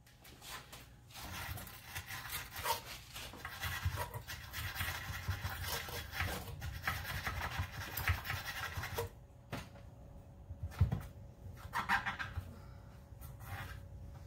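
Hands and a cloth rag rubbing and scraping on a pressure-washer fuel tank while it is handled and wiped, in an irregular run of scuffs that thins out after about nine seconds.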